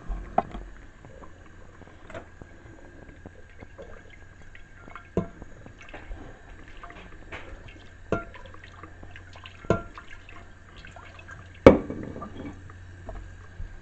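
Tap water running and dripping as cooked spaghetti is rinsed at a kitchen sink, to wash off its starchy film, with several sharp knocks, the loudest about two-thirds of the way in.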